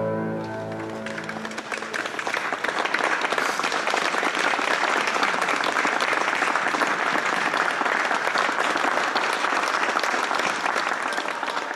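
Audience applauding: many hands clapping in a dense, steady mass that builds up about a second and a half in and holds. Held music notes fade out at the start.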